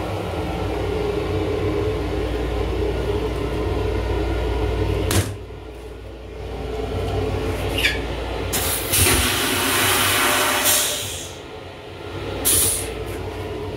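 Long Island Rail Road M9 railcar toilet flushing: a loud rush of water and air lasting about two and a half seconds. Before it the railcar's steady hum stops with a click, and a short burst follows near the end.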